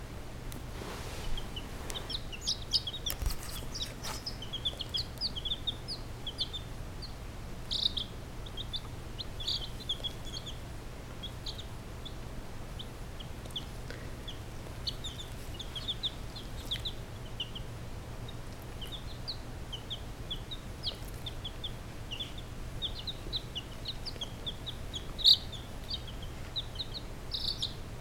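Baby chicks peeping: a continual stream of short, high cheeps, some in quick runs, with one louder peep near the end.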